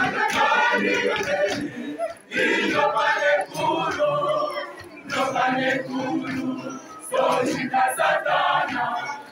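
A church choir of men and women singing together in short phrases, with brief breaks between them.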